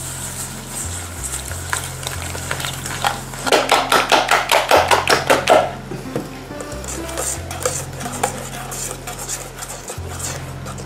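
Eggs, sugar and orange zest being beaten by hand in a bowl: a quick run of strokes against the bowl, about five a second, for a couple of seconds in the middle, then lighter, sparser strokes. Soft background music with low steady notes underneath.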